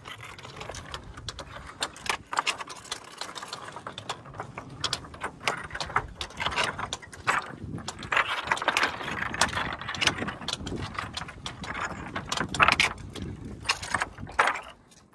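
Footsteps crunching and clattering over loose talus rock, stones clinking against each other and trekking-pole tips striking stone in an irregular run of sharp clicks. It cuts off near the end.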